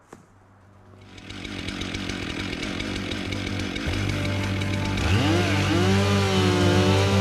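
Rock music fading in from near quiet, with a steady bass note from about four seconds in and bending electric-guitar lines near the end.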